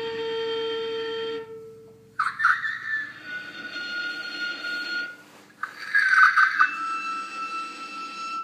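Amplified high vocal sounds through a handheld microphone: three long, high held notes, each starting with a wavering break and separated by short pauses. Under them runs a low electronic hum, and a steadier lower tone fades out about two seconds in.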